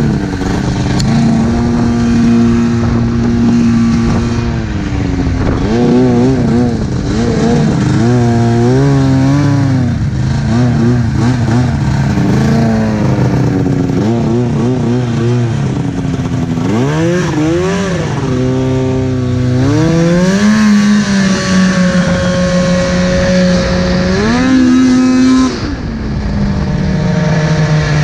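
Arctic Cat F7 snowmobile's two-stroke twin, fitted with a D&D pipe and Jaws silencer can, revving up and down as the rider works the throttle through snow. There are quick blips of throttle in the middle, and the revs drop sharply near the end.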